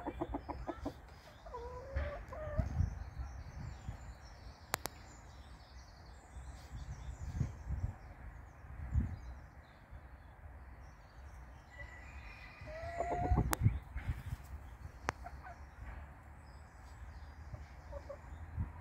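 Chickens clucking: a quick run of clucks at the start, a rising squawk about two seconds in, and a louder held call broken by quick clucks about two-thirds of the way through. Faint high chirps of small birds and a few sharp clicks sit in the background.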